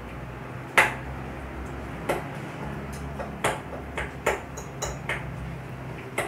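A metal fork stabbing into marinated beef steak pieces in a glass bowl, pricking the meat all over so the marinade soaks in. Its tines click sharply against the glass about seven times at an irregular pace, loudest about a second in.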